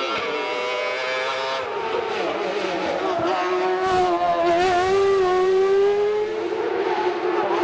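Hillclimb race car engine at high revs under hard acceleration. The pitch climbs through each gear and drops back at gear changes, about two seconds in and again near the end, and it grows louder toward the middle as the car comes closer.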